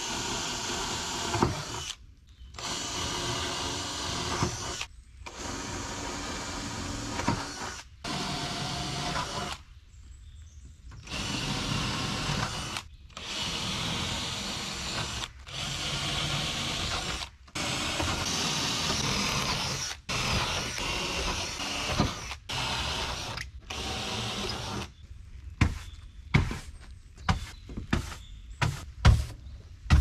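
Cordless drill driving screws down into pine deck boards, in runs of one to three seconds with short pauses between screws. Near the end, a string of short, sharp brush strokes as a long-handled brush sweeps the boards.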